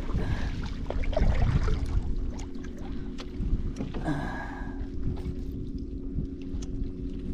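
Kayak paddling on a lake: paddle blades dipping and water splashing against the hull, with a brief louder splash about four seconds in and wind rumbling on the microphone.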